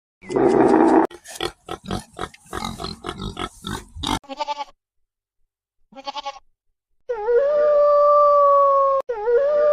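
A pig squealing and then grunting in a quick run of short grunts, followed by a few short calls and two long, level-pitched calls of about two seconds each near the end.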